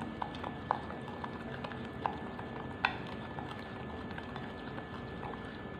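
Metal spoon stirring a wet paste of chili powder and sesame oil in a glass bowl, with irregular light clicks of the spoon against the glass. The sharpest click comes about three seconds in.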